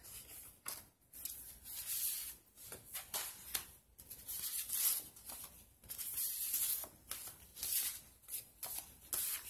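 Sheets of craft paper and cardstock rustling and sliding against each other as they are handled and flipped, in a series of short swishes.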